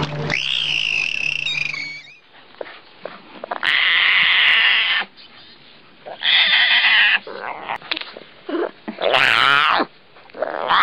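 A bottlenose dolphin whistling and squealing in high, pitched calls. Then big-cat cubs crying in three loud, high-pitched calls, each about a second long, the last wavering in pitch.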